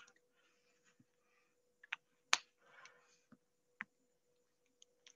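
A few faint, separate clicks and taps spread over the pause, the sharpest about two seconds in, over a faint steady hum.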